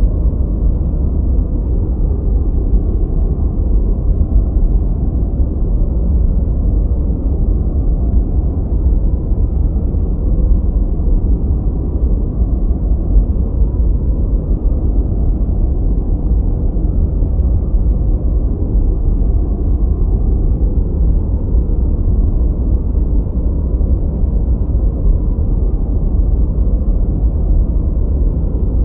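Steady, unchanging noise track sold as white noise, weighted deep and low like brown noise: an even, muffled rumble with nothing high-pitched in it.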